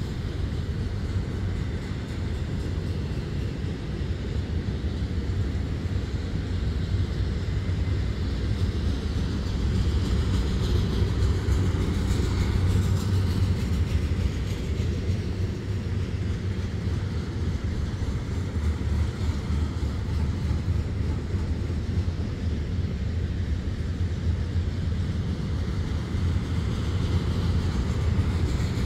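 Double-stack container train's loaded well cars rolling past: a steady low rumble of steel wheels on the rails.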